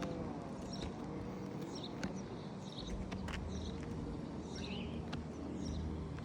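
Birds chirping here and there over a steady low mechanical hum, with a couple of sharp clicks about two and three seconds in.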